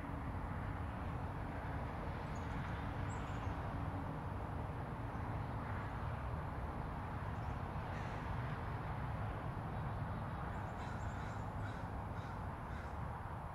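Steady hum of distant city traffic heard through the trees, with crows cawing, a quick run of caws near the end, and a few faint high bird chirps a few seconds in.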